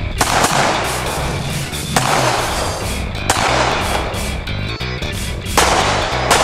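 Rock music with a steady bass line, broken by four loud crashing accents, each fading over about a second.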